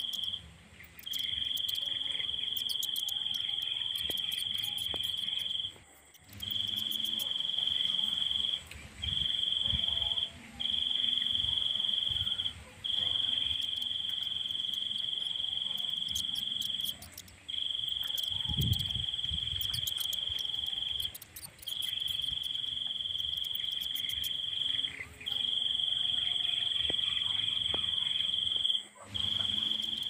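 Insect trilling: one steady, high-pitched note held in bouts of several seconds, each broken off by a short pause.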